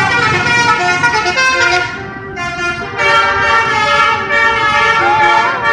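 Bus 'telolet' horn, a multi-tone musical horn, sounding steady chords that change as it plays. It drops back for about a second, two seconds in, then sounds again, and a rising and falling tone joins near the end.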